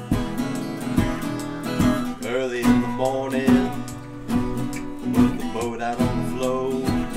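Background music: a strummed acoustic guitar in a steady rhythm, with a melody line that bends in pitch a little after two seconds in.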